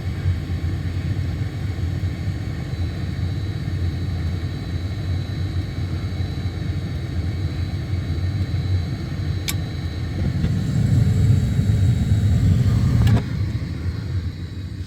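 Gas furnace running with a steady low rumble of the burner and blower. It grows louder for about three seconds near the end, then drops after a sharp click. The unit keeps cutting off because its cracked flame sensor vibrates out of the flame.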